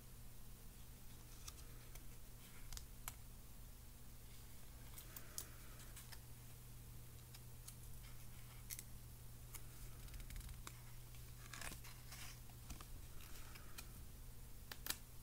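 Quiet handling of a paper booklet of sticky index tabs: scattered small ticks and a few brief paper rustles as the card and tabs are slid and flexed between the fingers.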